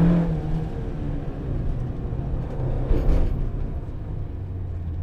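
Peugeot 205 rally car's engine heard from inside the cabin: it is held at high revs at first, then comes off the throttle about half a second in and drops to a low, rough rumble, with a brief louder burst about three seconds in.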